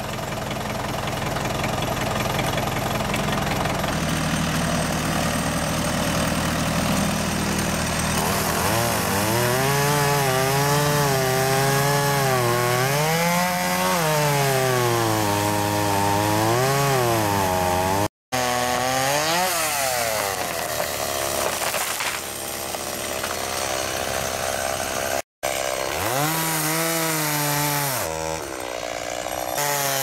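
Two-stroke chainsaw cutting into a tree trunk, its engine pitch repeatedly dropping as it bogs in the cut and rising again as it revs free. An engine runs steadily under the first several seconds, and the sound breaks off briefly twice.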